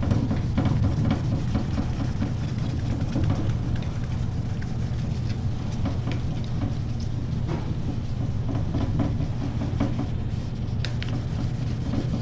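Hand wet sanding of clear coat on a black motorcycle tank with 2000-grit paper: repeated scratchy strokes, a fine sizzle of the paper across the wet clear coat, with the work table rattling, over a steady low hum.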